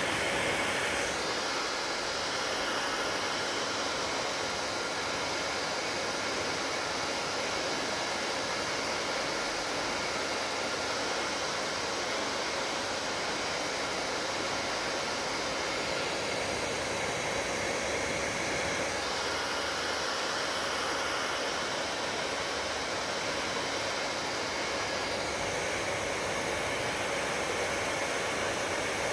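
Hair dryer running steadily: a constant rush of blown air with a faint steady whine from the motor. The sound of the airflow shifts a little a few times, about a second in and again past the middle.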